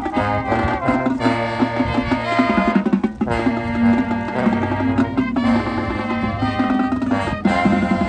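Marching band playing: brass chords over drums and percussion in a steady rhythm.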